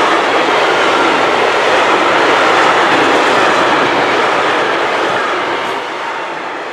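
Freight train of low-sided open wagons loaded with gravel rolling past: a loud, steady rush of wheels on rail that fades near the end as the last wagon goes by.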